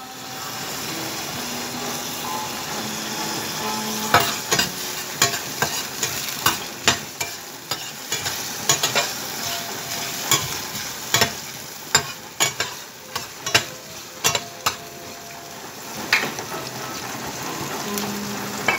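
Sliced onions sizzling in oil in a stainless steel frying pan, with a metal utensil scraping and clinking against the pan as they are stirred. The clinks come often from about four seconds in.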